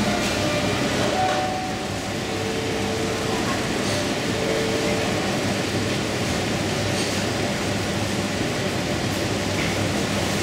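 Steady background noise inside a supermarket, with faint, indistinct voices.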